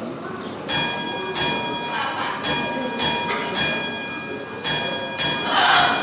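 A small bell rung eight times in an uneven run, strikes roughly half a second to a second apart, each ringing on briefly. It is rung by a blue-and-gold macaw at its trick stand.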